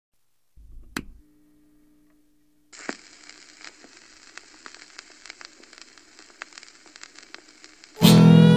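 A low thump with a sharp click about a second in, then a steady crackle full of scattered sharp clicks. Near the end loud music starts.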